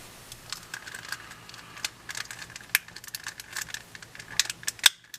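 Irregular small plastic clicks and taps from a X-Man Tornado V2 magnetic 3x3 speedcube being handled while a center cap is worked off, with the sharpest click just before the end.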